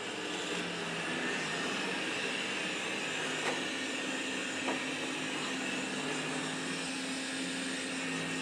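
Roborock E4 robot vacuum cleaner running on carpet: a steady motor and suction hum, with two faint knocks about three and a half and four and a half seconds in.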